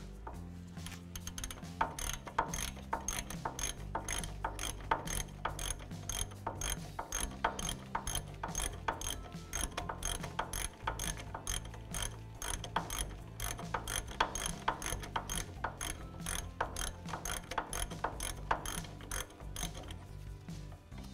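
Hand ratchet with a socket clicking over and over as it backs out a thread-locked brake caliper bracket bolt, several quick pawl clicks a second on each back-swing.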